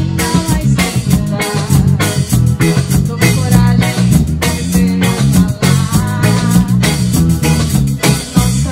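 Live band playing an instrumental passage of upbeat Brazilian music: guitar and bass over a drum kit keeping a steady beat.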